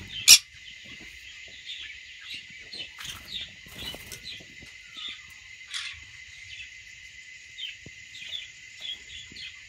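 Green-cheeked conures chirping in short, scattered calls over a steady high-pitched drone, with one loud sharp sound about a third of a second in.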